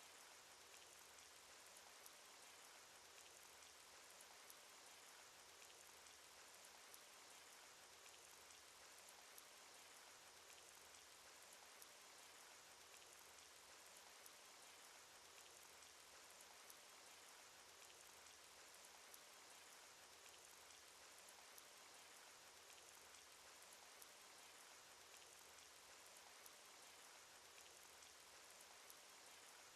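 Faint, steady cartoon rain sound effect: an even hiss of rain with frequent small raindrop ticks.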